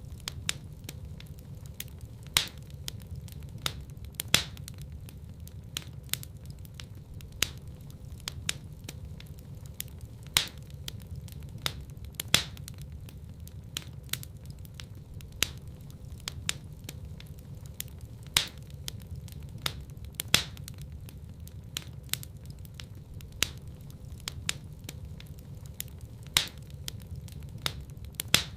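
Wood fire burning in a fireplace: a steady low rumble of flames with sharp, irregular crackles and pops, a few louder snaps every couple of seconds.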